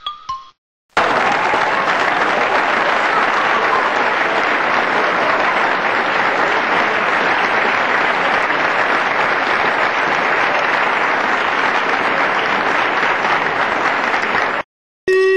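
Dense, steady applause that starts abruptly about a second in and cuts off just as abruptly near the end, the hard edges of an applause sound effect laid over the picture.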